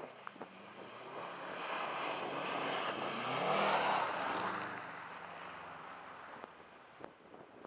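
A car drives past close by on packed snow. Its engine note and tyre noise swell to a peak about three and a half seconds in, then fade away, the engine pitch rising and falling as it goes by.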